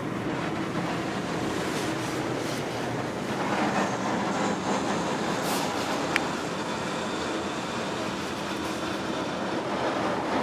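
Belanger Kondor automatic car wash spraying water over the car, a steady rushing hiss of spray with machine noise underneath. There is a single sharp tick about six seconds in.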